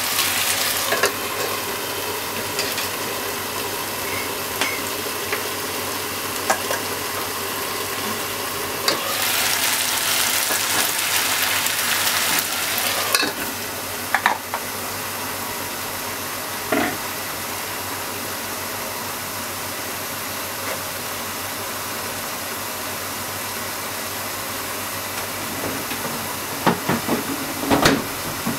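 Pork, shimeji mushroom and onion stir-fry sizzling steadily in a frying pan under a glass lid, which is set on the pan at the start. The sizzle swells for a few seconds in the middle, and there are a few sharp clicks, bunched together near the end.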